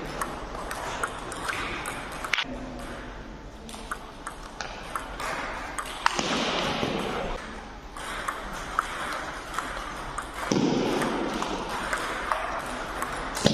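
Table tennis rally: the plastic ball clicks sharply off the paddles and bounces on the table, a hit or bounce every second or so, in a long exchange between a long-pimples defender and an attacking looper.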